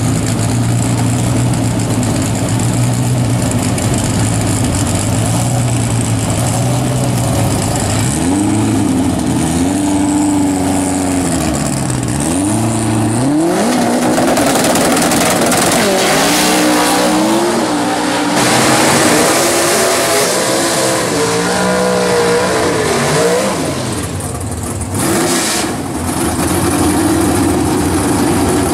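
A drag-racing car's engine idling steadily, then revved up and down again and again from about eight seconds in, with a loud rushing noise over it through the middle; it drops back to a steady idle near the end.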